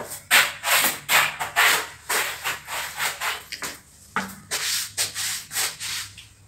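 Rhythmic scuffing, about two to three strokes a second, from someone walking across a tiled floor.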